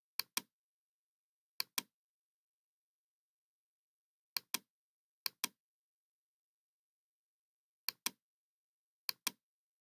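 Computer mouse button clicked six times, each click heard as a quick pair of ticks (press and release), with silence between.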